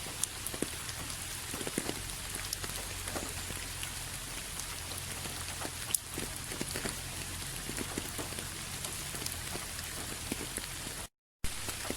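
Steady rain falling, with individual drops ticking sharply on a surface over the even hiss. The sound cuts out completely for a split second near the end, then resumes.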